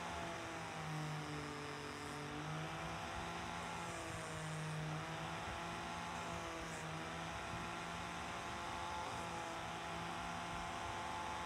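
Electric angle grinder with a sanding disc running steadily while a resin knife handle is sanded on it. Its motor pitch sags briefly a few times as the handle is pressed against the disc, then recovers.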